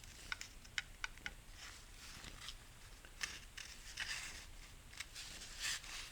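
Faint handling noise: a quick run of light clicks, then soft rustles and a few more clicks as metal transmission parts are moved and turned in the hands.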